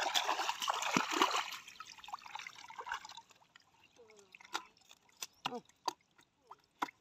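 Water splashing and streaming off a bamboo polo fish trap as it is lifted out of shallow water, loud for about the first three seconds. After that it goes much quieter, with scattered sharp taps and clicks as fish are handled out of the trap.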